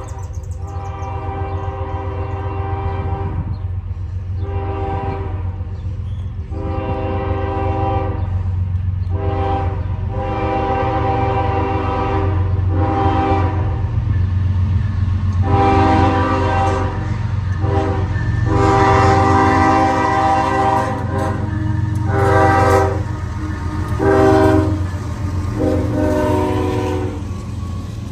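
A CSX freight train's diesel locomotive air horn sounds a series of long and short blasts, a chord of several tones, as the train approaches a grade crossing. The blasts grow louder over a steady low rumble from the locomotives' engines.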